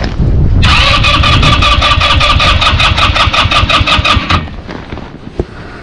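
Electric starter cranking an Irbis snowmobile engine in a rapid, even rhythm for about three and a half seconds, then stopping suddenly. It is being cranked because the engine is reluctant to start in the frost.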